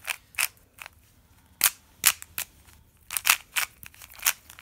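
About ten sharp plastic clicks and clacks at irregular intervals: hard plastic puzzle pieces and packaging being handled.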